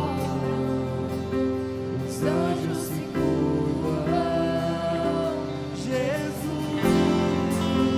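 Slow Christian worship song: a band plays sustained chords under a singer holding long, gliding notes.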